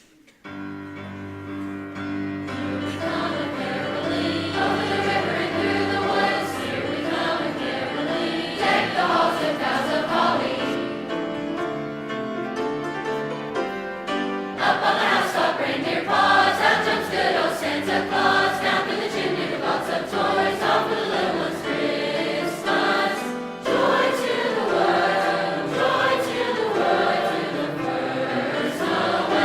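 A high school choir singing a Christmas concert piece, coming in about half a second in and carrying on without a break.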